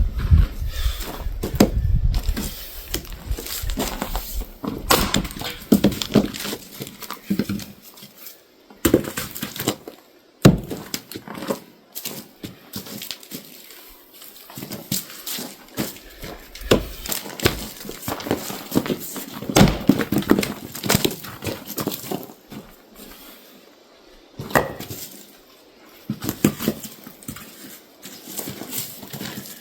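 Firewood being split by hand: irregular knocks of the tool striking the rounds, wood cracking apart, and split pieces clattering down.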